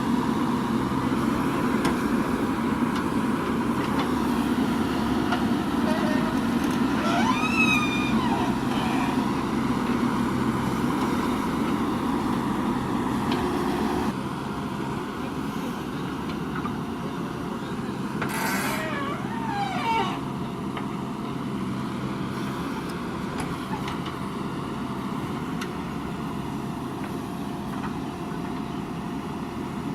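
Diesel engine of a JCB 3DX backhoe loader running steadily as it works. The engine sound drops suddenly in level about halfway through.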